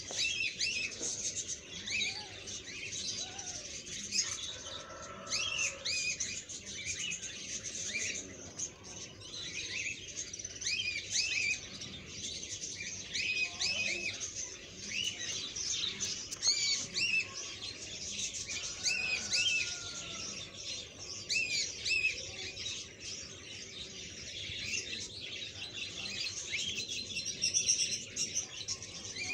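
Small birds chirping: many short, high chirps overlapping without a break.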